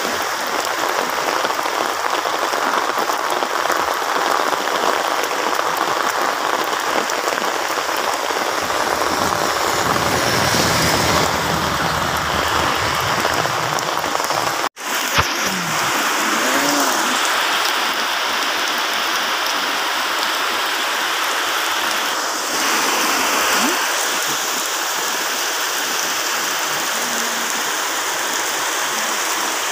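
Heavy rain pouring steadily as a dense, even hiss. It cuts out for a split second about halfway.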